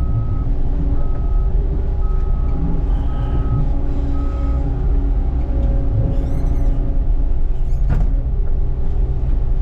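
Skid steer engine running steadily while its backup alarm beeps five times, about once a second, as it reverses. The beeping stops a little before halfway through, and a short clunk comes near the end.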